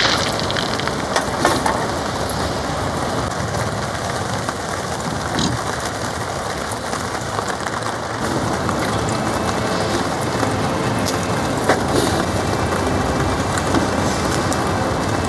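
Heavy rain drumming steadily on a polycotton camping tarp, with scattered sharp drip ticks.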